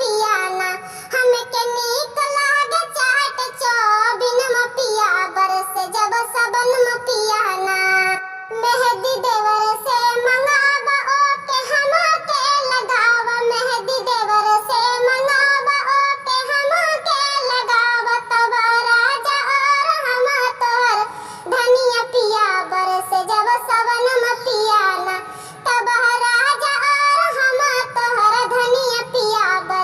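Kajri folk song: a high-pitched, sped-up-sounding female vocal singing over music, with a short break about eight seconds in.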